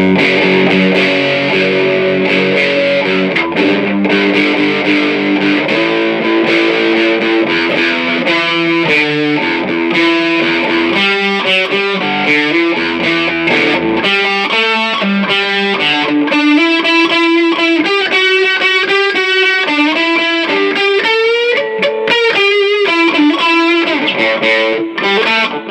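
Electric guitar on a Lace Deathbucker bridge pickup, played through the distorted channel of a Fender Princeton 112 Plus amp. Heavy chords and low riffing in the first half, then single-note lead lines with string bends and vibrato.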